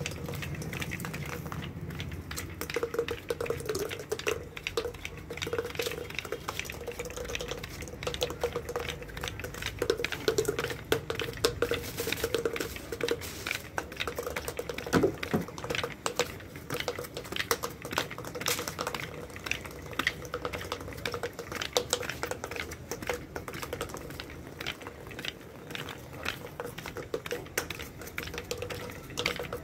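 Wooden kite-string spool (lattai) spinning as thread is wound on, making a rapid, irregular clicking and rattling with a faint steady hum under it.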